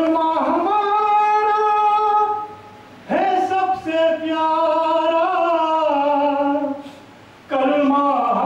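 A man singing a naat unaccompanied, in three long held phrases with short breaths between them, the notes sustained and bending gently in pitch.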